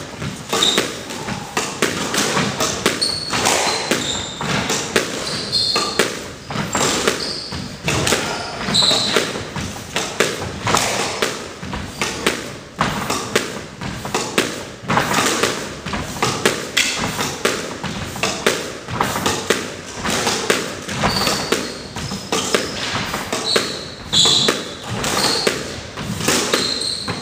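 Quick footwork on a wooden squash court floor: irregular thuds of landing feet, with short high squeaks from shoe soles gripping the boards.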